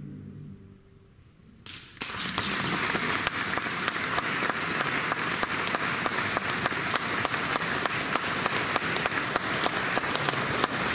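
A male voice choir's last sung chord dying away, then, about two seconds in, an audience bursting into steady applause that carries on to the end.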